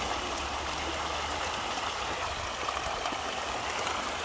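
A dense shoal of pond fish thrashing and splashing at the water's surface, a steady churning, splashing water noise.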